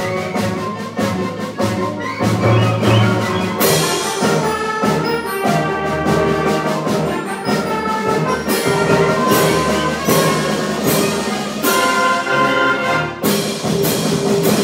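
High school concert band playing a piece, brass and woodwinds over a steady percussion beat.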